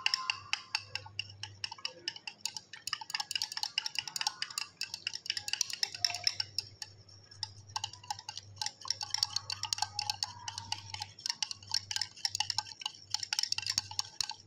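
Glass stirring rod clinking quickly and repeatedly against the inside of a glass beaker as milk is stirred, with a short pause a little past halfway.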